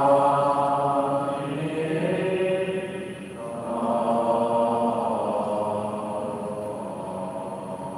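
Slow Buddhist devotional chanting in long, drawn-out held notes, with a break about three seconds in before the chant resumes and slowly grows quieter.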